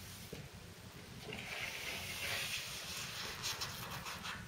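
A sheet of lining paper rustling as it is handled and offered up to the wall, a soft papery hiss with a few light crackles near the end.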